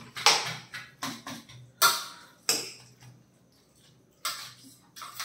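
Metal teaspoons scraping and knocking against plates while cutting parotta, about half a dozen short sharp scrapes, unevenly spaced.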